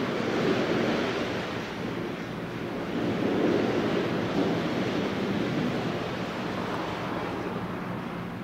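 Wind rushing across the microphone, swelling and easing in gusts, over a faint steady low hum.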